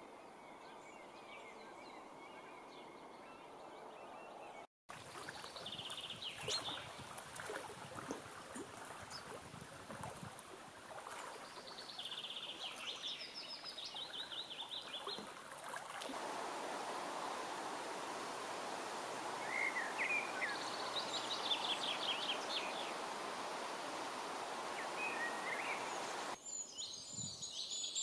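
Outdoor summer ambience of songbirds: several bursts of fast, high trills and some short chirps over a steady background hiss. The background shifts abruptly a few times.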